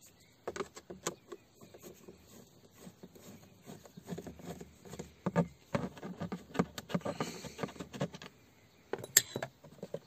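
A screwdriver turning out the screws of a plastic steering-column shroud, with irregular small clicks, scrapes and rattles of tool and plastic trim, and one sharper click about nine seconds in.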